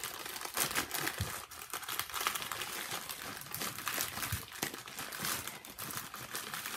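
Clear plastic bags crinkling and crackling continuously as hands gather and shake a bag full of small packets of diamond painting drills.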